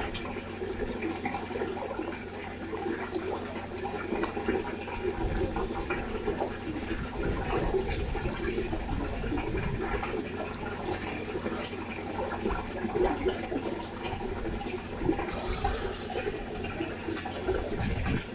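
Koi sucking and slurping at the water surface as they feed from a hand, with continuous irregular splashing and gurgling of the pond water.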